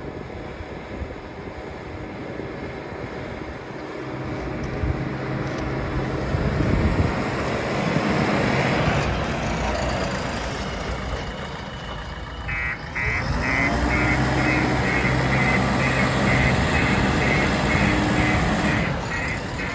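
JCB 3DX backhoe loader's diesel engine running, revving up a few seconds in and then settling to a steady run. Partway through, a high electronic alarm starts beeping about three times a second over the engine.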